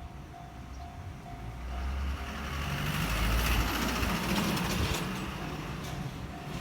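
Electronic level-crossing warning bell ringing in even pulses about twice a second. Over the middle a loud passing vehicle rumbles up and fades, drowning the bell for a few seconds.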